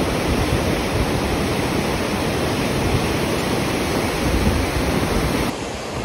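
Fast-flowing mountain river rushing over rocks: a steady roar of white water. It drops a little near the end.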